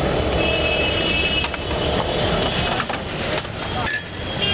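Busy street-stall ambience: people talking and passing traffic, over an egg frying in hot oil on a gas-fired pan. A thin high tone comes in about half a second in and again near the end.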